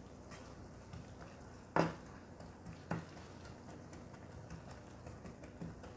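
Chopped onions in oil stirred with a plastic spatula in a frying pan, the spatula scraping and knocking against the pan twice, about two and three seconds in.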